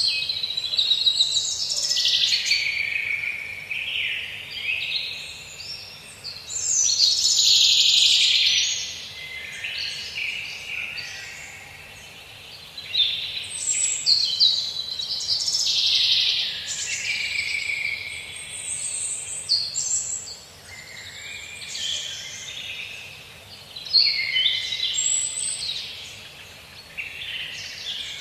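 Many birds singing and chirping together in a dense, overlapping chorus of high trills and calls that swells and fades every few seconds.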